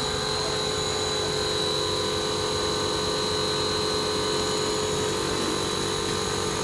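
PVC blown-film machine running: a steady mechanical drone with a constant high whine over a lower hum.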